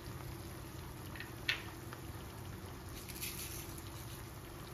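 Faint sizzling from a kadhai of sago pearls and potatoes cooking over a gas flame, under a steady low hum, with one light tap about a second and a half in.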